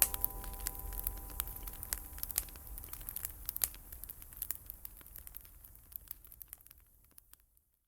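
Wood fire crackling with irregular sharp pops, fading away to silence near the end. A last ringing note from the music dies out in the first second.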